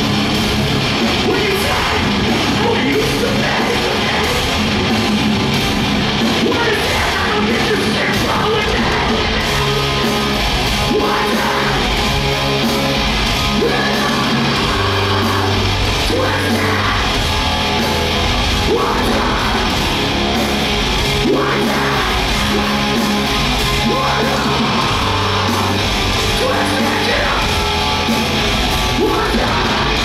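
Live hardcore punk band playing loud, with distorted electric guitars, bass and drums under shouted vocals.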